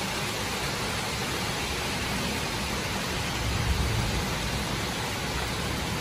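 Heavy rain pouring down steadily, a dense even hiss, with a brief low bump about two-thirds of the way through.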